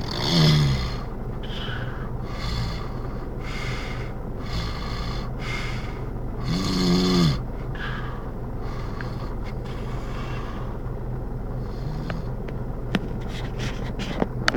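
A person snoring in deep sleep: two loud, rasping snores, one about a second in and one around seven seconds in, with noisy breaths in and out roughly once a second between them. A few sharp clicks come near the end.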